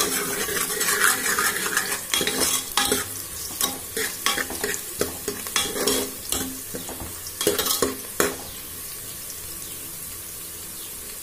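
Sliced onions sizzling in hot oil in a pressure cooker while a steel spoon stirs them, scraping and clinking against the pot. The stirring stops about eight seconds in, leaving only the steady sizzle.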